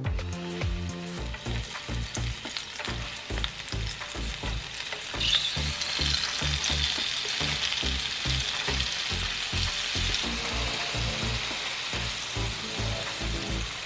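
Cornstarch-coated shrimp deep-frying in hot vegetable oil in a skillet: a steady sizzle that grows much louder about five seconds in, as more shrimp are lowered into the oil.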